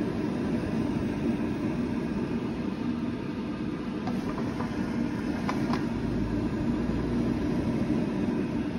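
Steady mechanical hum, with a few faint clicks about four to six seconds in.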